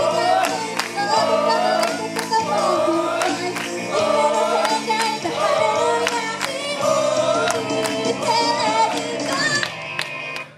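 Female J-pop idol group singing together into microphones over a pop backing track with a steady beat. The music thins out near the end.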